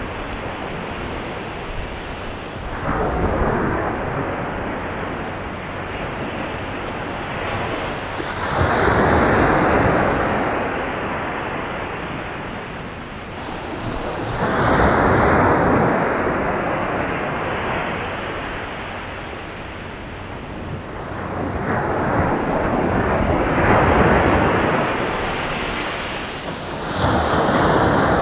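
Sea waves breaking on a beach: the surf swells and falls back, with a louder break about every six seconds.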